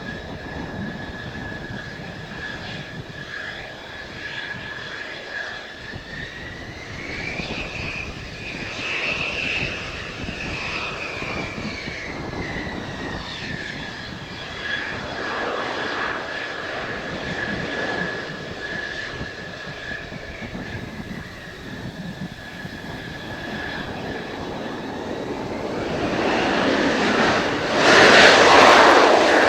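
Mitsubishi F-2 fighter jet engine running: a steady high turbine whine that rises in pitch and falls back over a few seconds in the middle. Near the end a much louder jet roar builds up and peaks.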